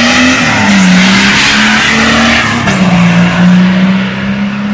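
Off-road 4x4's diesel engine at hard throttle, blowing black smoke as it accelerates past and pulls away. The engine note holds steady and steps down in pitch twice, about half a second in and again near three seconds in, with loudness easing off near the end.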